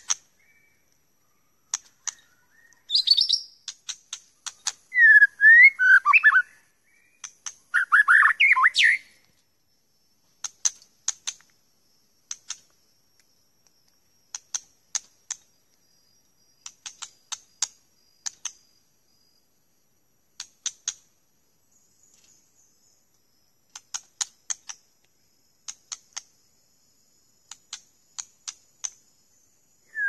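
White-rumped shama calling: a few loud, gliding whistled song phrases in the first third, then sharp clicking calls in short bursts of two to four, repeated every second or two.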